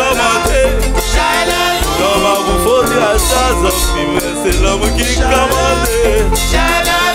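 Live band music with a beat and bass, and vocalists singing into microphones over it.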